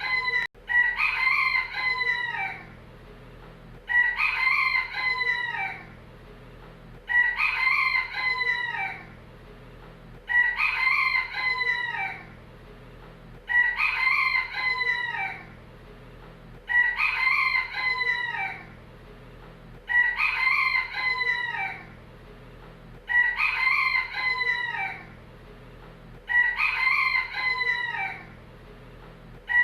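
Rooster crowing again and again, one crow about every three seconds, each crow about two seconds long and identical to the last, as a looped recording.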